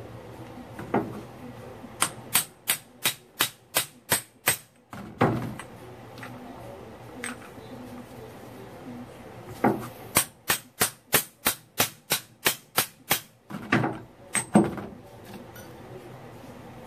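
Hammer tapping on metal: two runs of quick, evenly spaced light taps, about three a second, the first starting about two seconds in and the second about ten seconds in, with a few duller knocks between them.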